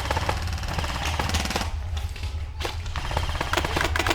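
Airsoft guns firing in fast rattling strings of shots. The firing thins out briefly around the middle, then picks up again more densely near the end.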